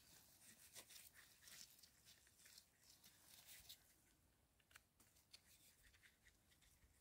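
Near silence with faint scattered clicks and light crackling: a knife trimming and scraping the stem base of a freshly picked false morel.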